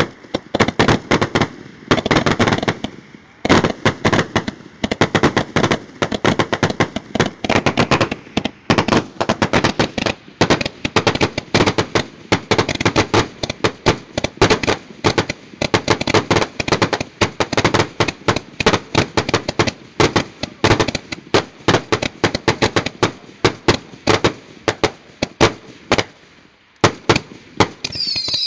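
Consumer fireworks going off together, roman candles firing ball after ball: a dense, near-continuous run of sharp pops and bangs, several a second, with a brief lull near the end.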